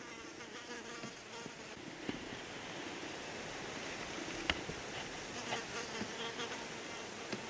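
An insect buzzing near the microphone, with a single faint click about four and a half seconds in.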